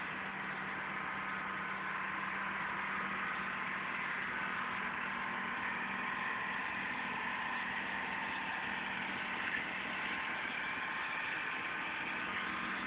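Sprinkler irrigation running: the steady hiss of a big gun sprinkler's water spray over a steady engine hum, as from the motor driving the irrigation pump.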